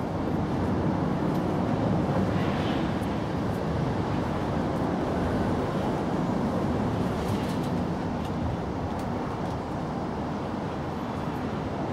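Steady low outdoor rumble of distant road traffic, swelling slightly about a second in, with a few faint scattered ticks.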